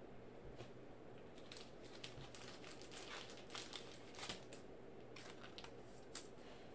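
Faint crinkling and light clicking of trading cards and their plastic packaging being handled, in a scatter of small rustles between the card reveals.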